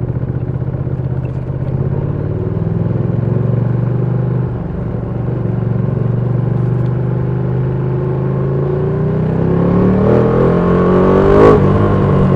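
Ducati Panigale V2's 955 cc Superquadro twin engine running steadily, with a brief dip about four and a half seconds in. From about nine seconds its revs climb in pitch to a sharp crack near the end, then drop back.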